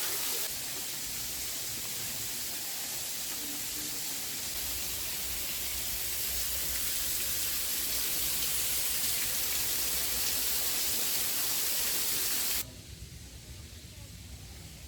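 Steady hissing rush of a waterfall, even and unbroken, which cuts off abruptly near the end to much quieter outdoor background.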